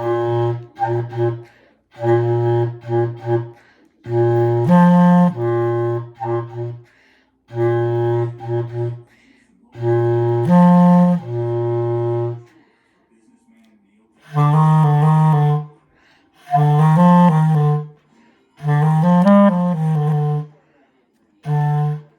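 A solo woodwind instrument playing its band part alone: short phrases of held low notes broken by rests, then from about two-thirds of the way in shorter phrases with notes that step up and down.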